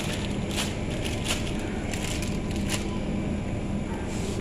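Supermarket background noise: a steady hum, as from the open refrigerated meat display cases, over an even haze of store noise, with a few short clicks or rustles about a second in, near the middle and again a little later.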